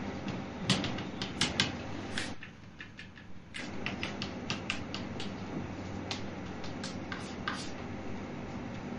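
Chalk tapping and clicking against a blackboard while writing: a run of irregular sharp ticks over a steady low room hum.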